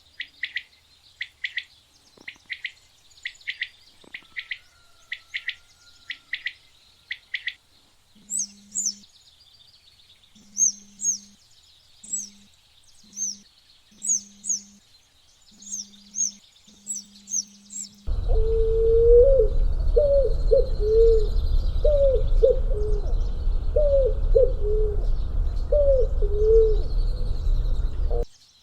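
Three short clips of calls, one after another. First come a dozen or so evenly spaced bird chirps. Then come higher, sharper chirps in pairs over a faint low hum. Then, much louder, short falling calls repeat about ten times over a rumbling background, and stop abruptly near the end.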